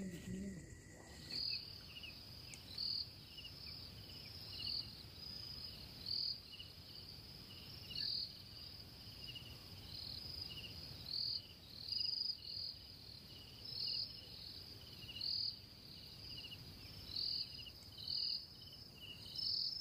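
Night insects chirping: a steady high trill that starts abruptly about a second in, with louder chirps every second or two.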